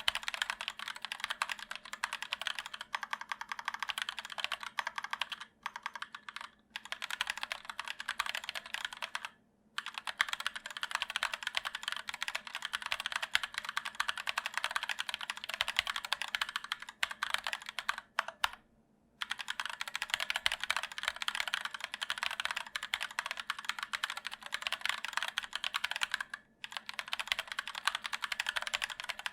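Continuous fast typing on an ErgoDox EZ split keyboard with Durock POM linear switches and sculpted PBT keycaps: a dense stream of key clacks, broken by brief pauses about six, nine and a half, nineteen and twenty-six seconds in.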